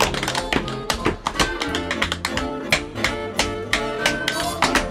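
Tap dancing: rapid, sharp strikes of tap shoes in quick rhythmic runs over instrumental backing music.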